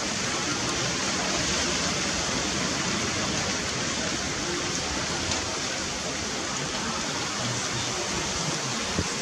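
Strong blizzard wind blowing steadily through conifers and bare trees, a constant rushing noise with no letup.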